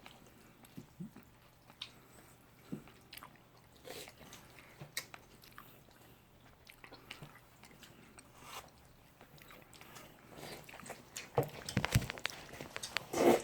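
Faint, scattered clicks and small knocks of a meal of jjajangmyeon being handled at the table, with a louder, denser run of clicks and knocks about eleven seconds in.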